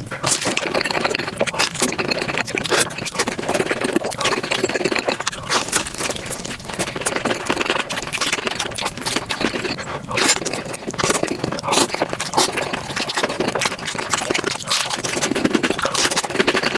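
Close-miked eating sounds: fast, continuous chewing and smacking, a dense run of quick wet clicks.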